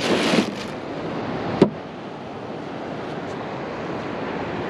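Ocean surf washing on the beach, with wind on the microphone and a swell of noise at the start. One sharp click about a second and a half in.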